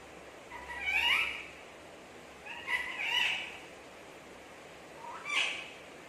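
A pet green parrot gives three calls, each about a second long and wavering in pitch, spaced roughly two seconds apart.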